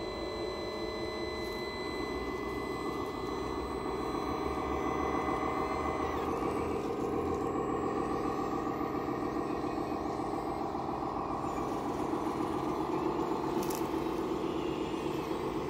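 Radio-controlled Volvo A40G 6x6 articulated dump truck model running with a steady mechanical drone. A thin high whine stops about six seconds in.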